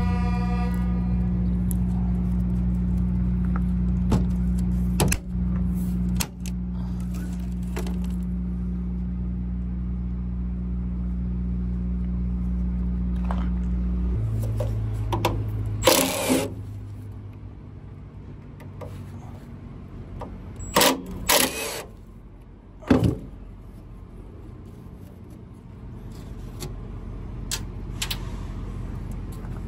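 Diesel engine of a Thermo King TriPac APU running steadily, then changing and dying away about fourteen seconds in. A few sharp metallic clanks and rattles follow.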